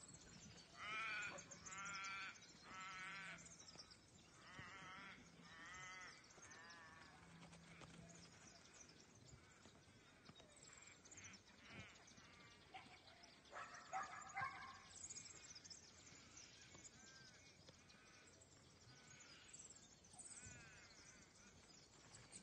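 Sheep bleating: a run of quavering bleats in the first several seconds, then fainter, scattered bleats later on.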